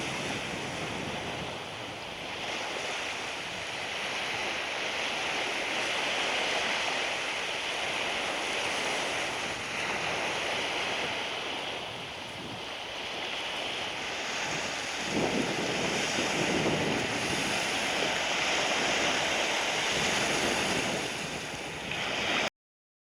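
Surf breaking on a sandy beach, swelling and easing with each wave, with wind buffeting the microphone; it cuts off suddenly near the end.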